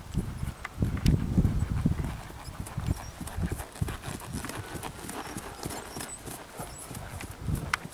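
Hoofbeats of a ridden bay pony trotting on grass turf: a run of dull, irregular thuds, louder about a second in as she passes close.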